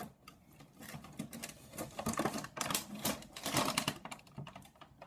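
Clear plastic packaging around a pair of headphones crinkling and crackling as it is handled and unwrapped, busiest in the middle.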